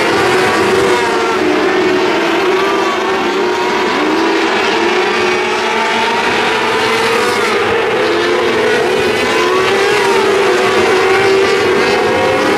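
A field of 600cc micro sprint cars racing on a dirt oval: several high-revving engines running at once, their pitches rising and falling as the cars go through the turns and down the straights.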